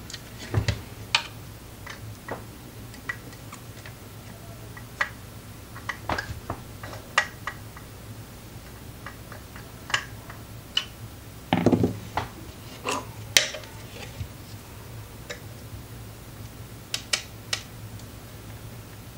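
Irregular clicks and clinks of a small screwdriver and screws as a GTX 1060 graphics card is taken apart, with a heavier knock a little past the middle, over a steady low hum.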